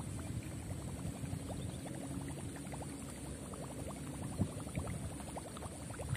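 Water lapping and gurgling against the hull of a small boat: many small irregular splashy ticks over a low rumble.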